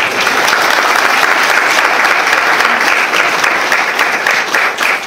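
Audience applauding, many hands clapping at once in a dense, loud patter that thins slightly near the end.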